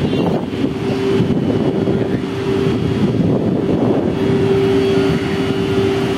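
Alstom WAG-12B twin-section electric freight locomotive standing with its cooling blowers and auxiliary machinery running: a steady, loud whir carrying a constant hum-like tone.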